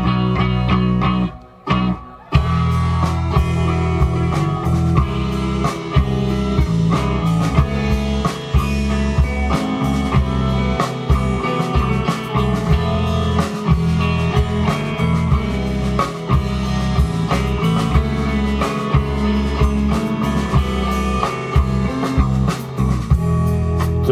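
Live rock band playing an instrumental passage on guitar, bass guitar and drum kit, with regular drum hits under sustained chords. The band stops dead twice in quick succession about two seconds in, then plays on.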